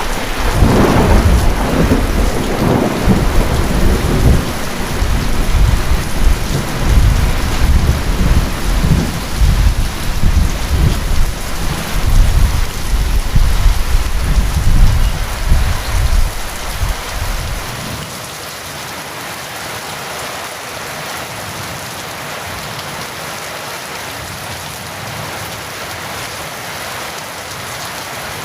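Steady heavy rain with a long rolling rumble of thunder that fades out about two-thirds of the way through, leaving only the even hiss of the rain.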